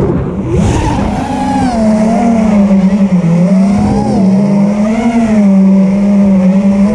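FPV quadcopter's brushless motors and propellers whining steadily, the pitch dipping and rising over and over as the throttle changes.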